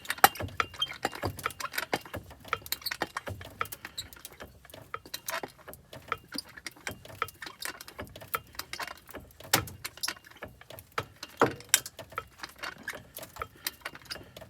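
Porta-power hydraulic hand pump being worked to push out a bent bus door frame: a steady stream of irregular clicks and small squeaks, with a couple of sharper clicks in the second half.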